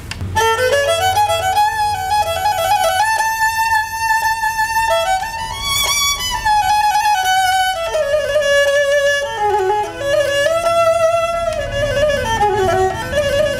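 Nepali sarangi, a bowed folk fiddle, played solo: a melody of stepping and sliding notes, with a lower note held underneath through parts of it.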